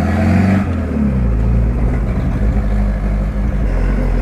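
Chevrolet Opala engine running loud through its opened exhaust, the engine note shifting in pitch during the first second and then holding fairly steady.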